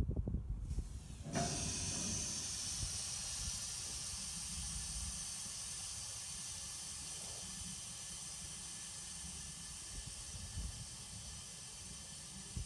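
Steady hiss of compressed air venting from a freight car's air brake system. It starts suddenly about a second in and slowly fades, over a low rumble.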